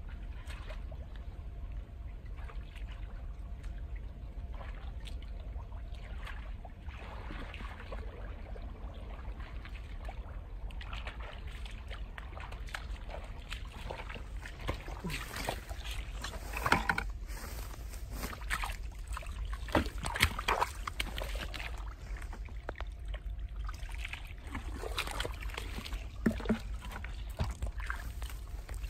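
Shallow muddy ditch water splashing and sloshing irregularly as it is scooped and stirred by hand and with a bucket, over a low steady rumble. The loudest splashes come past the middle.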